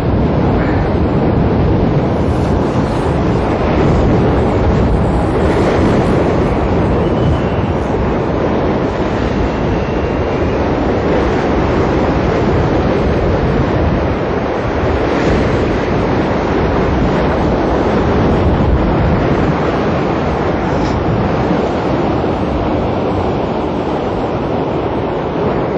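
Heavy surf surging and breaking against coastal rocks, a steady loud wash of sea, with wind buffeting the microphone.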